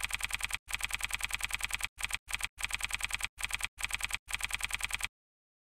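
Typing sound effect: rapid key clicks in short runs separated by brief pauses, stopping suddenly about five seconds in.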